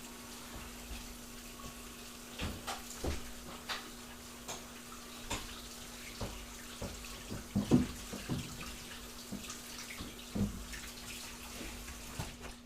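Kitchen tap running steadily and shut off at the end, with scattered knocks and taps throughout, the loudest two about two thirds of the way through.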